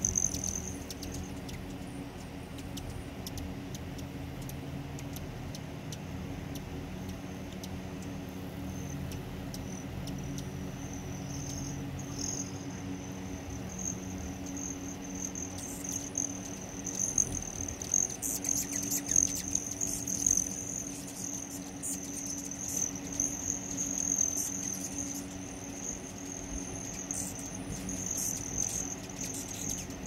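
Hummingbirds hovering at a hand-held feeder, their wings making a steady high, thin trill that dips briefly in pitch and grows louder in the second half, with scattered clicks and flutters.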